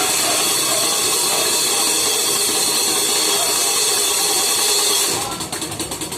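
A dense, steady wash of ringing metal noise, a fast roll on improvised metal percussion such as pots, pans and barrels. About five seconds in it thins into quick, evenly spaced strikes.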